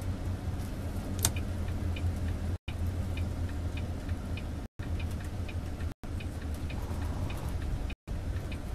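Semi-truck tractor's diesel engine droning steadily in the cab, with a turn signal ticking about twice a second. The audio cuts out briefly four times.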